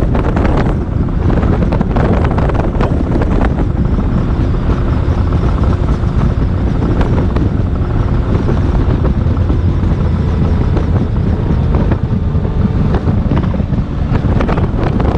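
Boat motor running steadily underway, with wind buffeting the microphone.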